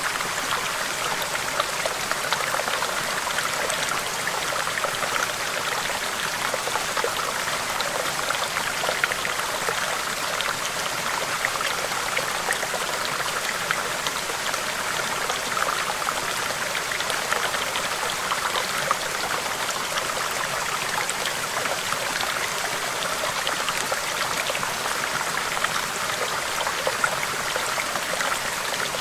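Small stream running over rocks: a steady babble of flowing water with many small splashes and gurgles.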